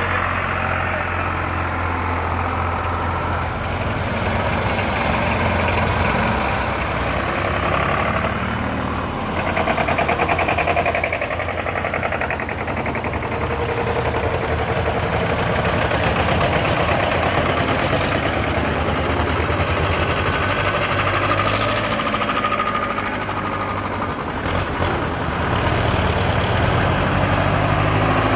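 Vintage vehicle engine idling steadily with a low, even hum, and a few short clicks in the second half.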